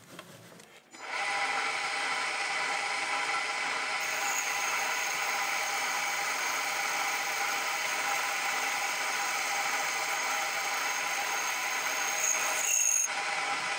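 Metal lathe boring tool taking a light internal cut in a thin-walled miniature piston. The workpiece rings with a steady whine of several high tones, which starts about a second in and stops abruptly near the end as the cut finishes.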